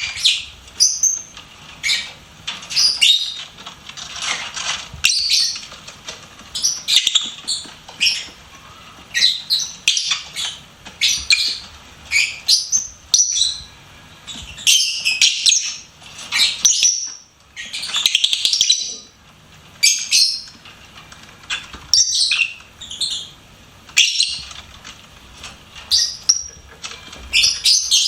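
Pet lovebirds chirping and twittering: rapid high-pitched chirps in bursts every second or so, with short pauses.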